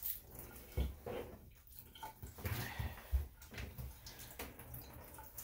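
Water dripping and splashing in a bathtub around a freshly rinsed wet dog, with a few soft knocks.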